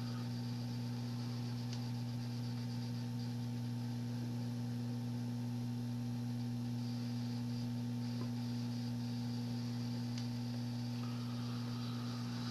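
Steady low hum, even throughout, with no other distinct sounds.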